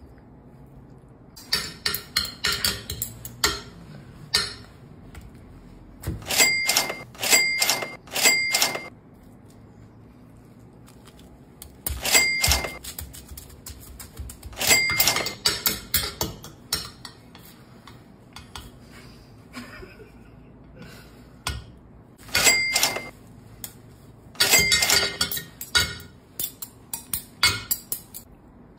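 Knife and fork on a white ceramic plate: bursts of sharp clinks and scraping as a crisp pastry is cut, some strikes ringing briefly with a clear bell-like tone. Quieter scraping and crunching fills the stretches in between.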